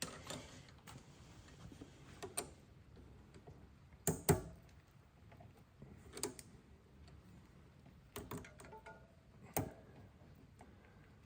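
Scattered light clicks and small knocks of hands and tools working on a bicycle rear derailleur while its cable tension is adjusted, a few irregular ticks with a sharper double knock about four seconds in.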